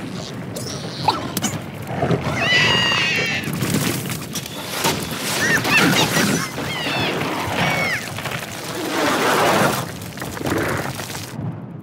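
Cartoon squirrel squealing and shrieking in several short cries that bend up and down, mixed with sliding whooshes and crashing impacts on ice and snow.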